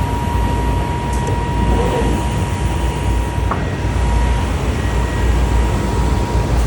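Glass cutting CNC machine running with a steady, rumbling drone and a thin high whine; the whine cuts off with a click about three and a half seconds in.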